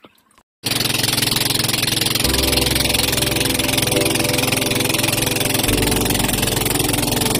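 Boat engine running steadily under way, starting abruptly less than a second in.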